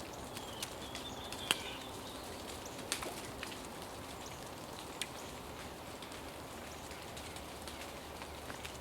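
Steady rush of flowing river water with scattered sharp ticks like falling drips, the loudest about a second and a half in. A brief high bird call sounds about a second in.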